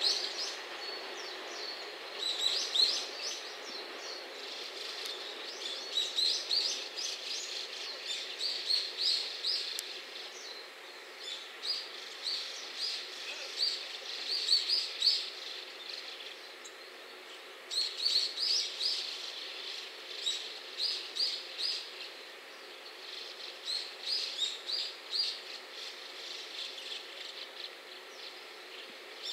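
Small birds chirping, with short high notes in quick irregular clusters, over a steady background hum of outdoor noise.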